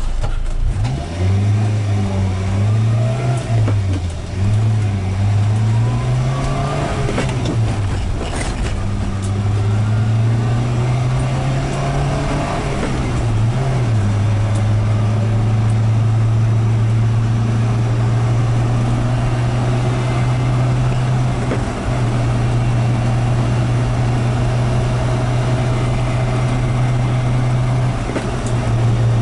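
1999 Subaru Sambar van's small four-cylinder engine pulling away through the gears of its 5-speed manual, its pitch rising and dropping with each shift over the first dozen seconds, then running steadily at a constant cruising speed.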